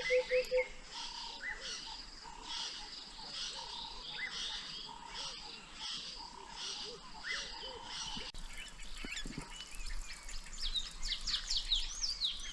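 Wild birds calling: a high call repeated about twice a second, then, after about eight seconds, a busier run of quick, sharp chirps.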